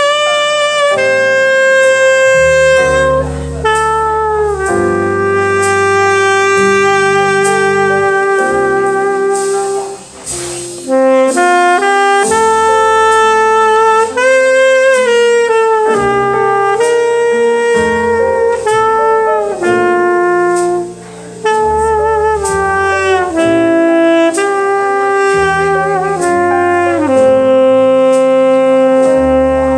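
Selmer Mark VII tenor saxophone playing a jazz ballad melody in long held notes with vibrato, over a backing track with a bass line. The saxophone breaks off briefly twice, about a third and two-thirds of the way through.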